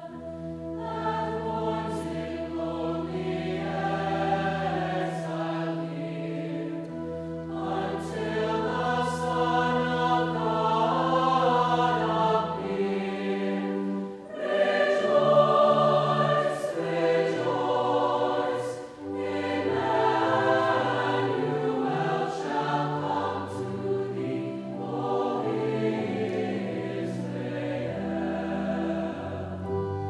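Mixed choir of men's and women's voices singing a sacred Christmas piece, with long held low notes in the first half and two brief breaths between phrases in the middle.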